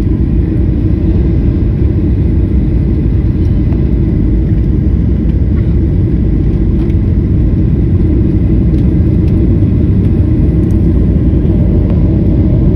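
Steady, loud, low rumble of an airliner cabin, with engine and airflow noise heard from inside the plane.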